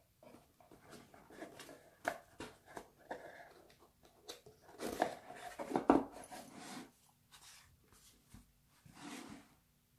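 Packaging being handled during an unboxing: irregular rustling with sharp clicks and taps, loudest about five to six seconds in.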